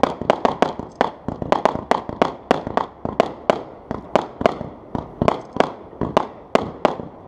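Consumer firework cake firing: a rapid string of sharp bangs as shots launch and burst, about three or four a second, each with a brief echo.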